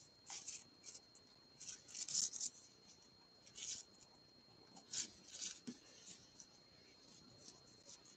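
Faint, irregular scratchy rustles of yarn drawn through a crochet hook as stitches are worked, a soft swish every second or so, over a thin steady high tone.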